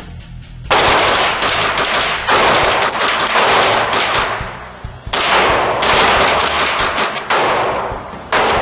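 AR-15 rifle, a Daniel Defense DDM4V11 in 5.56, fired rapidly in several strings of shots with short pauses between them. The first string starts about a second in.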